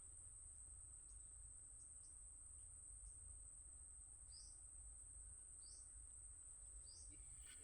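Faint steady high-pitched drone of crickets or other insects, with a few short falling chirps, three of them clearer and evenly spaced in the second half, over a low rumble.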